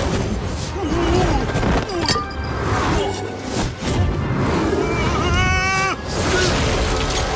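Film fight soundtrack: dramatic music over a blowing-sand wind effect, with several sharp hits and crashes and a short high pitched cry or note about five seconds in.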